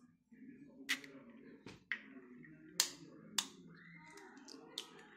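Eggs tapped and cracked against the rim of a stainless steel bowl: about five sharp clicks, roughly a second apart.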